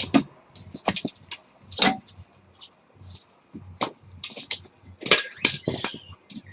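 Irregular clicks, knocks and light rattles of small hard objects being handled, about a dozen sharp hits with short gaps between them.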